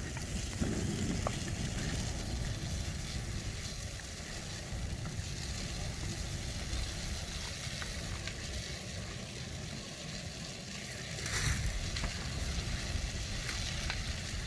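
Fire burning through a camper refrigerator, a steady crackling and hissing with scattered small pops, growing louder for a stretch about eleven seconds in.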